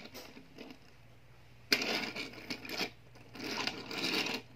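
Die-cast Lightning McQueen toy cars pushed across a desk top: the small wheels roll and scrape with light clicks and rattles. This happens in two stretches, the first starting suddenly.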